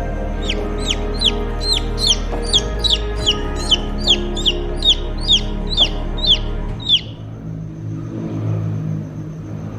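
Chick peeping repeatedly, short high peeps that each fall sharply in pitch, about two or three a second, stopping about seven seconds in.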